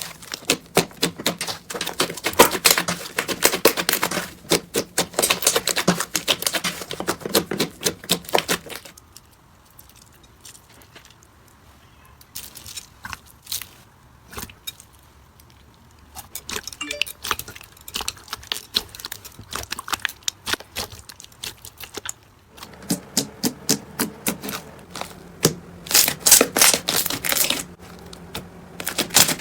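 Slime being squeezed and worked by hand: rapid runs of sticky clicks and pops. The clicking goes faint for several seconds in the middle, comes back sparser, then thickens again near the end.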